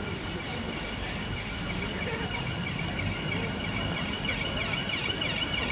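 City street traffic noise. An emergency-vehicle siren, wailing up and down in pitch, comes in about four seconds in and grows louder.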